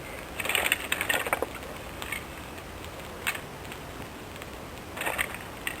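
Resinous wooden kindling sticks clicking and knocking as they are laid onto a small campfire. The clicks come in short clusters: a dense run in the first second and a half, single knocks at about two and three seconds, and another short run near the end.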